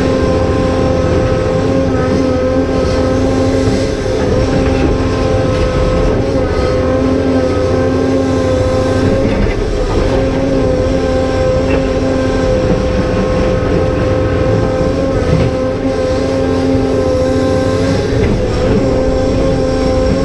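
Cat 390F excavator's diesel engine running steadily under load, with the steady whine of its hydraulic pumps on top.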